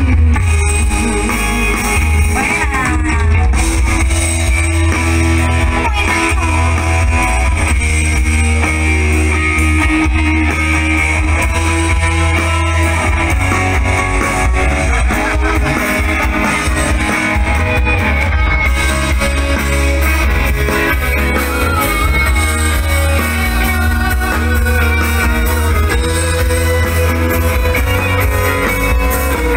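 Loud rock-style music with guitar and a steady bass line, playing continuously.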